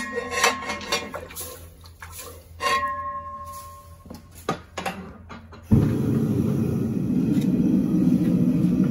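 Steel tongs and bar stock clinking and knocking against metal, with one short ringing clang. About two-thirds of the way through, a propane forge burner starts a loud, steady rushing roar that cuts in suddenly and keeps going.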